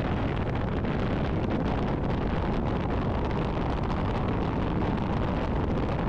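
Steady wind rushing and buffeting over the microphone of a camera mounted outside a moving truck, mixed with road noise from the truck towing a travel trailer.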